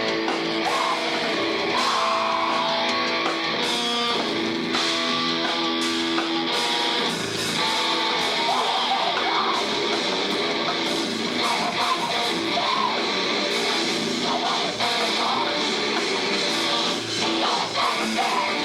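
Live rock band playing loud, heavy electric guitar chords over drums.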